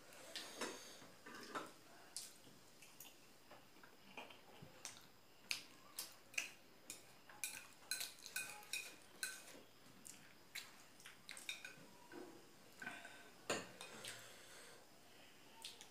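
Chopsticks clicking and scraping against a plate while momo dumplings are picked up and dipped in chutney: many irregular light taps, some leaving a short ring.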